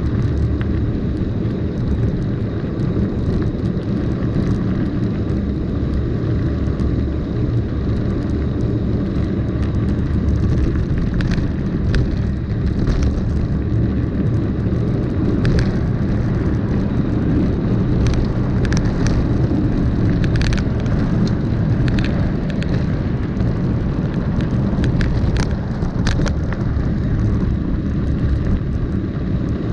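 Wind buffeting the microphone of a camera on a mountain bike rolling down a gravel forest road, under tyre noise on the gravel. Scattered sharp clicks and rattles from the bike jolting over rough ground come in from about ten seconds in.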